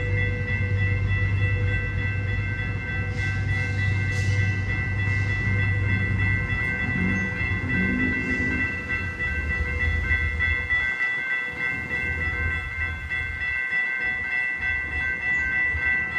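Railroad crossing bell ringing without a break while a train rumbles past. The train's low rumble dies away about ten seconds in, and the bell keeps ringing.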